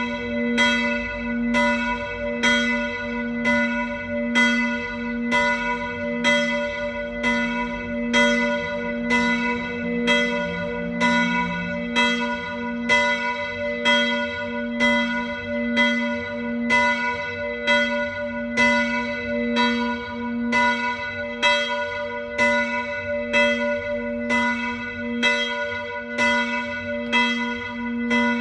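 Church bells ringing in full peal, their strikes coming in a steady, even rhythm, with a long low hum ringing on beneath them.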